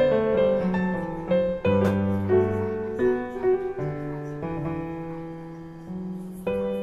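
Piano music with slow, ringing notes and held chords, growing gradually softer toward the end.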